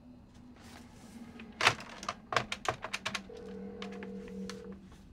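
A phone being dialed: a knock, then a quick run of about eight button clicks, then a steady ringing tone on the line that stops and comes again.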